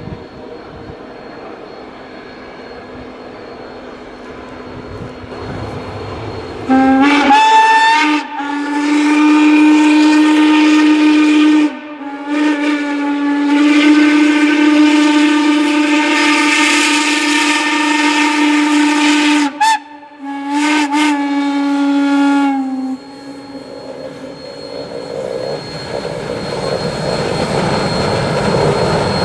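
Steam locomotive whistle blowing a series of loud blasts, two of them long, starting about seven seconds in and ending a few seconds before the end. Before and after the blasts the locomotive's running noise can be heard, growing louder near the end.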